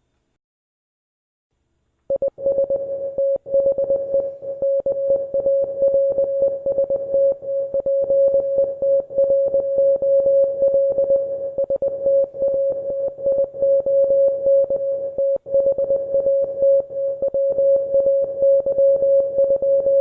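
Morse code: a single mid-pitched beep, keyed on and off quickly and unevenly, spelling out English text in International Morse code. It starts about two seconds in, and each on and off gives a faint click.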